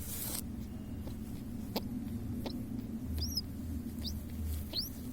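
Baby pigeon giving five short, high, rising squeaks, about one every second from a couple of seconds in, over a steady low hum. A brief rustle comes at the start.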